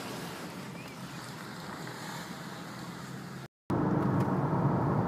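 A steady, even rushing noise outdoors. About three and a half seconds in it cuts off abruptly, and a louder steady vehicle hum takes over.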